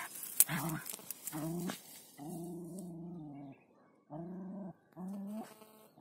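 Jagdterrier giving a run of low, drawn-out growling whines in about five bouts, the longest over a second. A few sharp clicks come at the very start.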